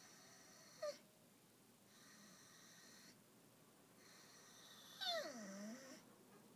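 Dog 'singing': a short high whine about a second in, then a louder, second-long moaning howl near the end that slides down in pitch and turns back up.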